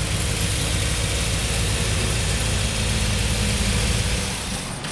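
1946 Ford woody's engine idling steadily, then switched off about four seconds in, the idle dying away.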